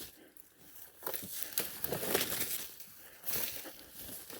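Irregular crunching and rustling of footsteps pushing through brush and dry forest debris, in a cluster of uneven steps near the middle.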